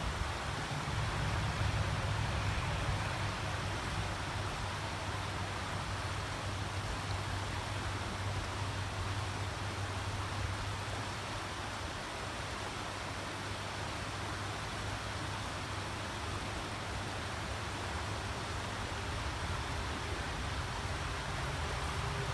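Steady rush of a small creek's flowing water, with a steady low rumble underneath.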